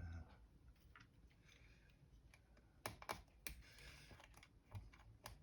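Faint scattered clicks and light taps of a small screwdriver and parts on a MacBook Pro's open chassis, with a brief scratchy rustle about three and a half seconds in.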